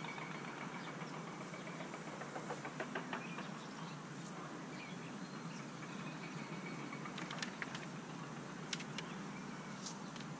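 Steady outdoor background hiss with scattered faint light clicks and taps from bamboo canes being handled and pushed into soil, a few sharper ones near the end.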